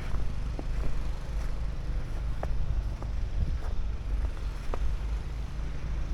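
Footsteps in snow, faint and about once a second, over a steady low rumble.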